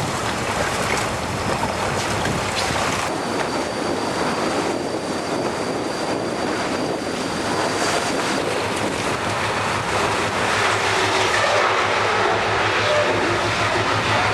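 A large ship under way: a steady rushing noise, like water and broken ice along the hull, over a low engine hum, with a faint high whine for a few seconds in the middle.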